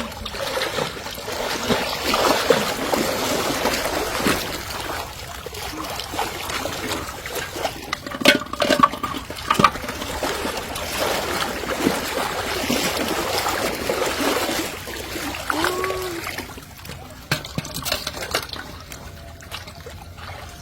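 River water splashing and trickling, uneven and choppy, with scattered small knocks and clicks.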